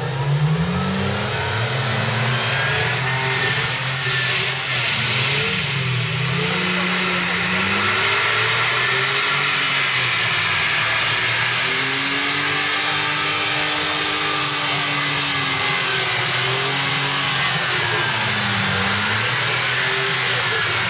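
Mercedes-Benz trial truck's engine revving up and easing off again and again as the truck crawls over rocks and tyres and climbs a muddy slope.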